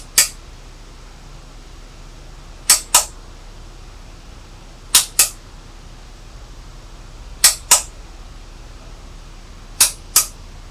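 Sharp clicks in pairs, five pairs about two and a half seconds apart, the two clicks in each pair a fifth of a second apart, over a steady low hum.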